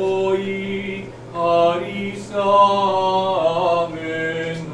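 Unaccompanied Orthodox liturgical chant: voices sing a few phrases of long held notes over a steady low tone held underneath.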